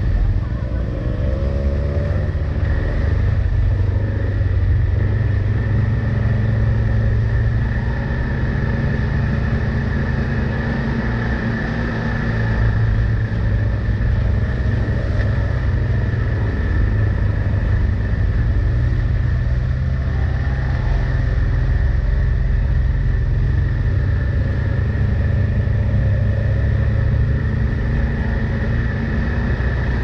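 Side-by-side UTV engine running steadily as it crawls along a rough trail, heard from on board, with a steady high whine over the engine drone. The engine eases off briefly about twelve seconds in, then picks up again.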